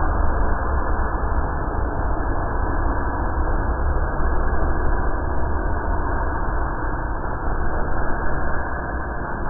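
Dark ambient noise drone: a dense, steady, muffled rumble, heaviest in the bass.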